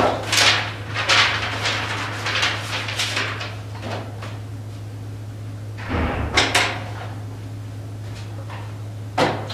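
Pencil scratching on spiral-notebook paper in a quick run of short strokes for about three seconds, then more paper handling about six seconds in and a short click near the end.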